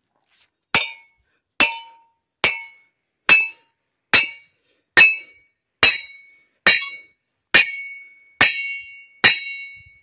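Sledgehammer striking the center of a 2015 Ram 1500 front wheel hub assembly with its brake rotor still attached: about eleven evenly spaced blows, a little under one a second, each a sharp metallic clang that rings briefly. The blows knock the stuck hub loose from the rotor.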